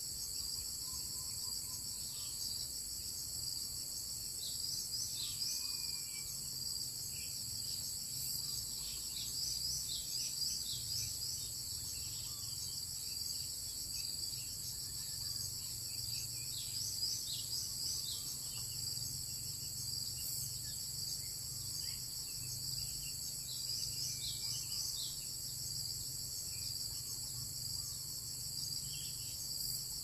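Dense, steady chorus of insects, with many short, high chirps scattered through it.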